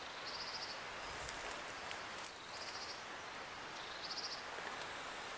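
Woodland ambience: a steady soft hiss with a small bird's short, high, rapid chirping call repeated three times, about every two seconds.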